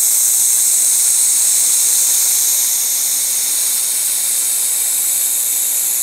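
1000 W handheld fiber laser welding torch with wire feed running a fillet seam in stainless steel sheet: a steady high hiss that eases a little about halfway through.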